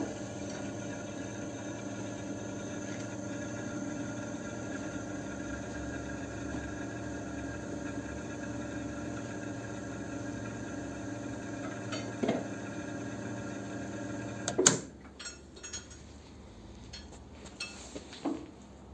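Fuel-injector test stand running with a steady hum, then shutting off with a sharp clunk about fifteen seconds in, followed by a few light clicks of handling.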